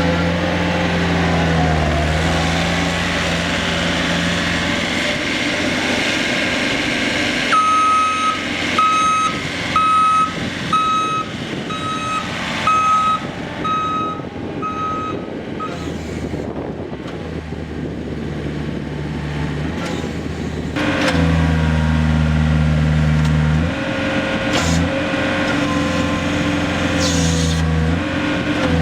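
2015 Mustang 1350R skid steer's diesel engine running, with its reversing alarm beeping steadily for about eight seconds while it backs up. About two-thirds of the way through, the engine gets louder, dropping away briefly twice near the end.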